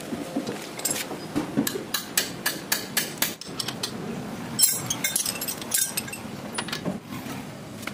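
Irregular metal clinks and knocks as a car's front brake caliper and pads are worked into place over the disc by hand, with a sharper cluster of clicks about five seconds in.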